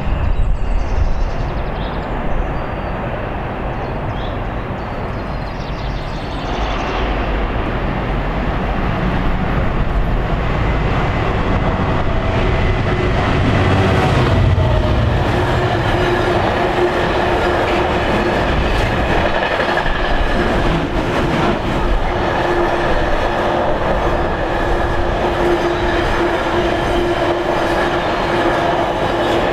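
A diesel-hauled intermodal container freight train passing close by on curved track. The locomotive's engine and rumble build to a peak about halfway through, then the container wagons roll past with a steady rumble and a held ringing squeal from the wheels on the curve.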